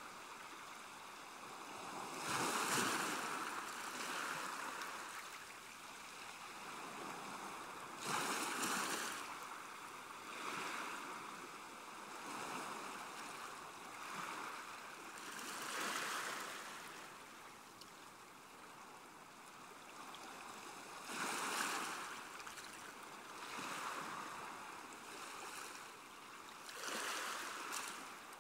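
Sea water lapping and splashing, with a louder wash of about a second rising out of it every few seconds, at irregular intervals.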